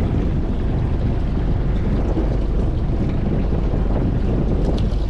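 Steady low rumble of wind on the microphone aboard a boat at sea, with the wash of the sea beneath it.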